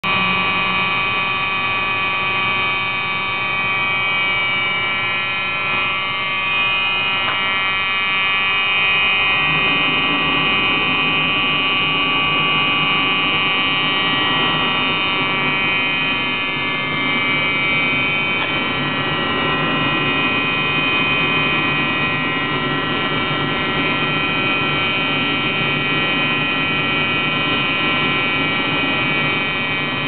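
Building fire alarm sounding continuously: a steady, buzzing electronic tone with many overtones that never breaks.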